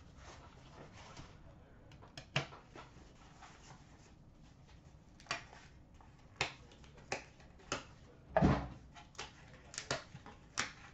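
Scattered light clicks and taps of a cardboard trading-card box being opened and a card set down on a glass counter, with one louder thump about eight and a half seconds in.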